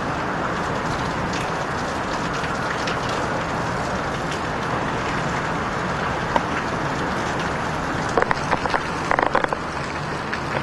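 Heavy wind-driven hurricane rain: a loud, steady hiss of downpour. A cluster of sharp taps and knocks comes about eight to nine and a half seconds in.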